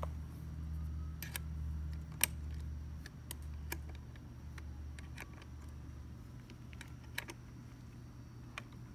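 Small irregular clicks and taps of hands working the scabbard's mounting bracket, screws and quick clamp on an e-bike fork, the sharpest about two seconds in, over a low hum.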